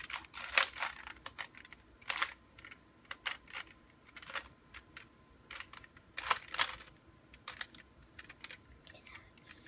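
Plastic Rubik's Cube being twisted by hand: irregular clicking and clacking of the layers turning, in short flurries with brief pauses.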